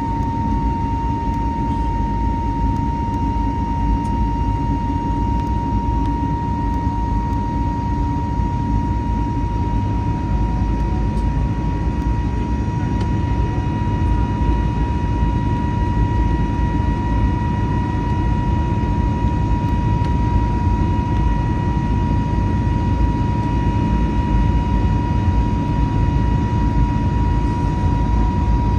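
Airbus A320neo jet engines running: a steady low rumble under a strong, steady high-pitched whine, growing slightly louder after the middle.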